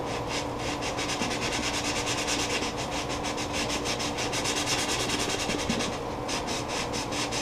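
Small piece of sandpaper rubbed quickly back and forth by hand on the inside of a black walnut bowl, about five strokes a second with a short pause about six seconds in, to work out a small knife cut in the wood.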